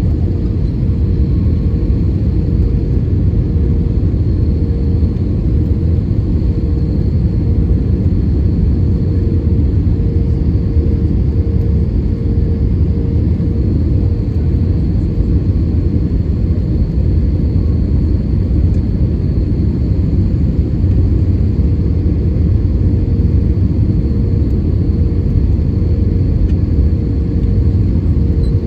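Airbus A320neo cabin noise: a steady, loud low rumble of the engines and airflow, with a faint even hum over it.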